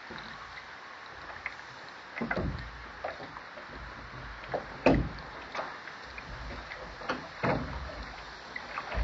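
Contender sailing dinghy under way: water lapping against the hull and irregular knocks and clunks from the boat, the loudest about five seconds in, over a steady background hiss.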